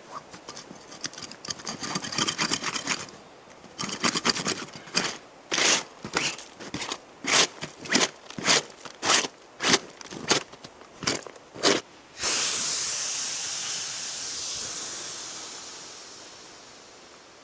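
Footsteps crunching in snow, first in quick shuffles, then walking at about two steps a second. About twelve seconds in they stop and a sudden rushing hiss takes over, fading away over several seconds.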